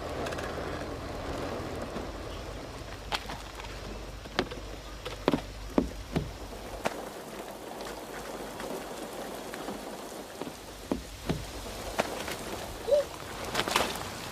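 Heavy rain falling steadily, with a scatter of sharp knocks and taps throughout. A low rumble underneath dies away about halfway through.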